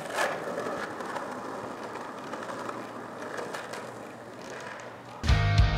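Skateboard wheels rolling on pavement, a steady rolling hiss that is loudest just after the start and slowly fades. Music with a strong beat comes in about five seconds in.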